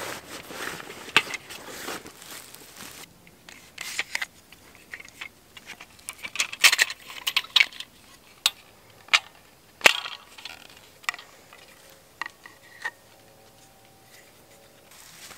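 Fabric rustling as a backpack's drawstring top is opened, then a string of sharp wooden knocks and clicks as a wooden folding bucksaw's frame pieces and blade are handled and fitted together.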